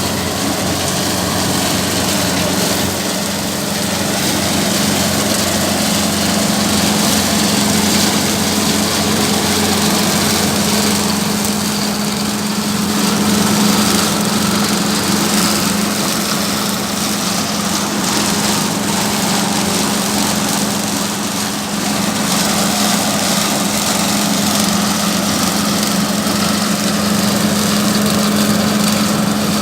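A machine engine running steadily at constant speed: a continuous hum with a whirring noise over it.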